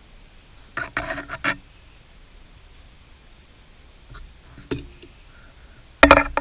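Hand tools clinking and knocking against the steel parts of a stopped metal lathe. There is a cluster of knocks about a second in, a single sharp clink near five seconds, and a louder clatter near the end that rings briefly.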